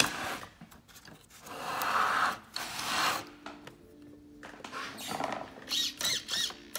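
Small RC servo whirring in short repeated bursts in the last second or so as it swings the airboat's two rudders back and forth, after a few seconds of noisy handling sounds.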